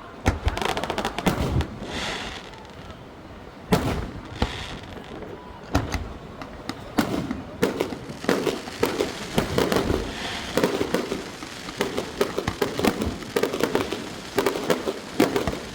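Aerial fireworks bursting: several sharp, separate bangs early on, then a dense run of crackling pops through the second half.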